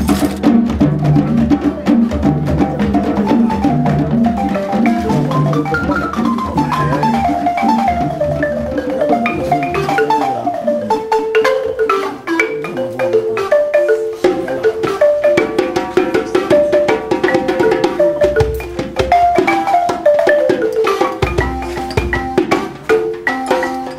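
Balafon music: quick runs of struck wooden-key notes, several sweeping down in pitch, over a steady low pulse in the first few seconds and low thumps again near the end.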